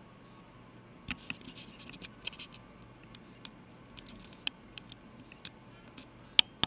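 Scattered light, sharp clicks and taps at an uneven pace, starting about a second in, with two louder clicks near the end.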